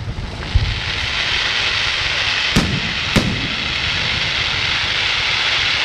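Fireworks display: a steady hiss of burning effects with a dull thump about half a second in and two sharp bangs a little over half a second apart near the middle.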